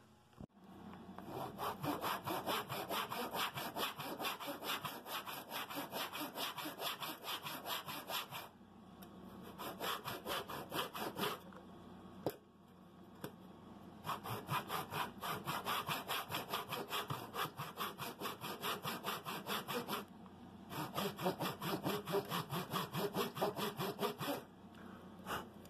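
Handsaw cutting across a small wooden board, quick back-and-forth strokes about three or four a second, in four runs with short pauses between.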